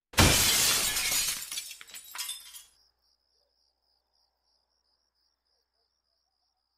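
Glass shattering in one sudden loud crash, with pieces clinking as it dies away over about two and a half seconds. Then a faint, steady, pulsing chirp of crickets.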